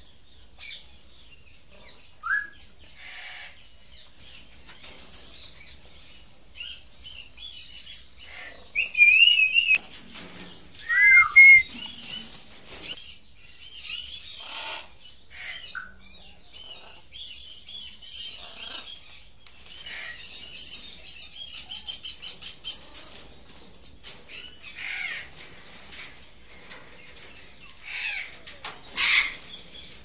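Many birds chirping and calling. There are two loud whistled calls that bend up and down about nine and eleven seconds in, and another loud call near the end.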